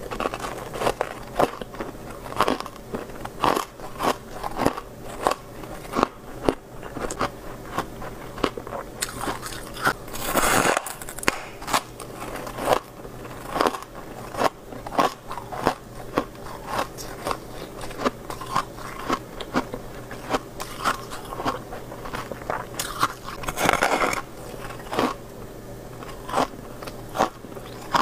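Freezer frost being bitten and chewed: an irregular run of sharp, crisp, squeaky crunches, a little more than one a second, with two longer, louder crunching stretches partway through.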